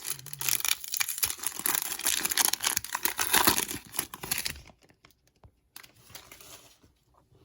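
Plastic wrapper of a trading card pack being torn open and crinkled: a dense crackling for about four and a half seconds, then a few faint rustles.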